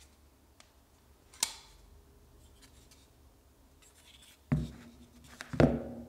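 QSP Swordfish folding knife blade closing with one sharp metallic click, then two knocks of folding knives being set down on a hard surface near the end.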